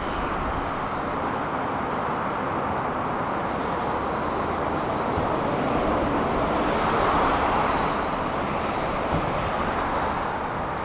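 Electric commuter train running, a steady rushing rumble that swells a little about seven seconds in.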